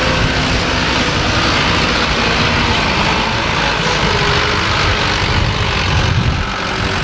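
Diesel engine of a loaded Mitsubishi dump truck running steadily as it drives along a dirt road, a constant rumble with road noise.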